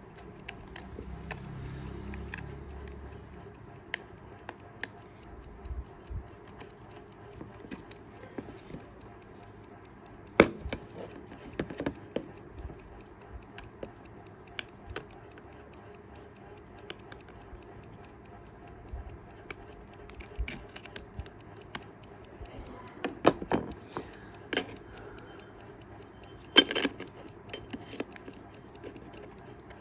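Kaiser 4 Rubis (four-jewel) travel alarm clock movement ticking, the escapement running after its revival. Several louder knocks and clatters stand out, the loudest about ten seconds in and again near 27 seconds.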